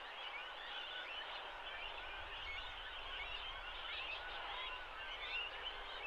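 Many overlapping bird calls and short chirps, dense and continuous over a steady outdoor hiss, with a faint low rumble joining about two seconds in.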